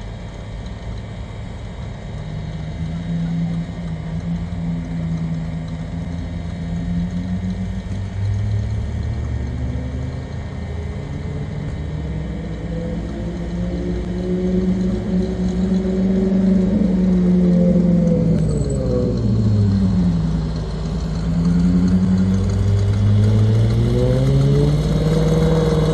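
Hot rod pickup's exposed V8 engine running as the truck rolls up and pulls past at low speed. The engine note climbs and falls with the throttle: it drops away sharply about twenty seconds in, then climbs again near the end.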